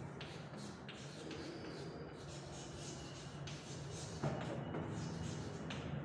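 Chalk scratching and tapping on a blackboard as words are written, in short strokes, with a sharper tap about four seconds in, over a steady low room hum.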